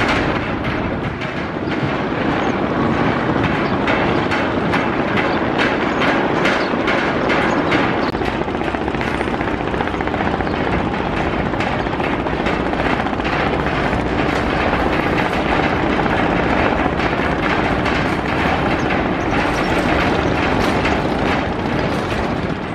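Diesel engines of a large multi-deck river passenger launch running under way, mixed with the rush of its propeller wash and bow wave churning the water, in a steady, even noise.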